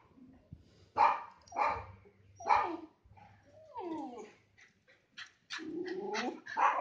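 Dogs barking at each other across a wall: three sharp barks in the first three seconds, then whining calls that slide in pitch and a few short yips, with more barking near the end.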